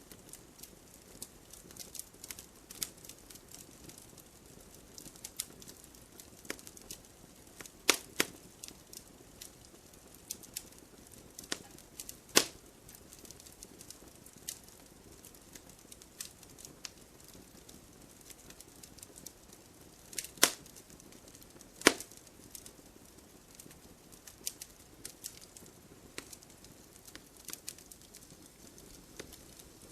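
Wood campfire crackling steadily over a low hiss, with scattered sharp ticks and four louder pops from the burning wood.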